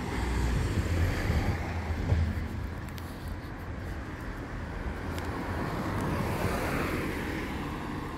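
Road traffic passing on a town street: engine and tyre noise of cars and a van, louder in the first couple of seconds and swelling again near the end as another vehicle goes by.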